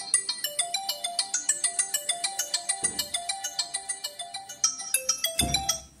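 Infinix Hot 11 incoming-call ringtone playing: a quick, repeating melody of high notes. Near the end there is a low thump, and the ringtone stops as the call ends.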